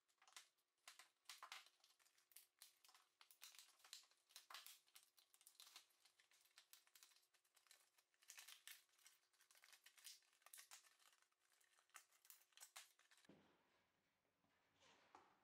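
Faint crinkling and crackling of a stiff plastic blister pack being pried open by hand, in quick irregular crackles that stop about two seconds before the end.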